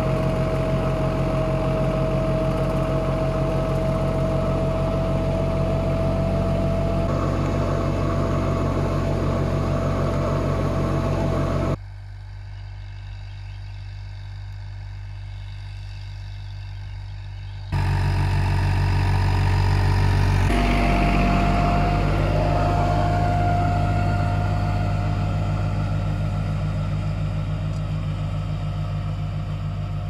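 Tractor diesel engine, plausibly a Fiat DT55-56, running steadily under load while pulling a two-row corn planter, with a steady high whine over the engine. The sound drops and the whine disappears for several seconds in the middle, then both come back.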